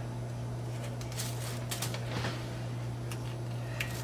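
A handheld tomato corer working into a tomato: a few short, faint scrapes and clicks, over a steady low hum.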